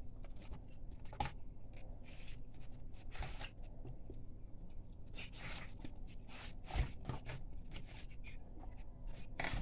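Soft, irregular scraping and tearing as a knife cuts and pulls the flesh and guts of a hedgehog fish away from its skin on a cutting board, with one dull knock about two-thirds of the way through.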